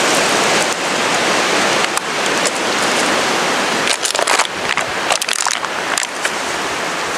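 Strong wind buffeting the microphone: a steady, loud rushing, with a few short crackles in the middle.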